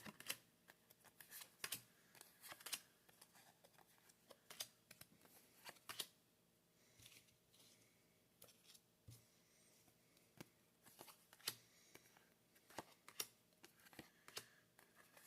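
Faint, irregular soft clicks and rustles of trading cards being handled and flipped through one at a time.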